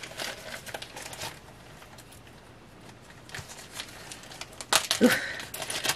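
Packaging rustling and crinkling as jewelry is unpacked by hand, in two spells with a quiet pause in the middle.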